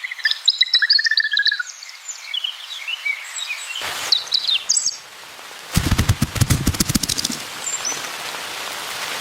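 Small birds chirping and twittering in short high calls. About six seconds in there is a brief burst of rapid rattling clicks, and an even hiss fills the last couple of seconds.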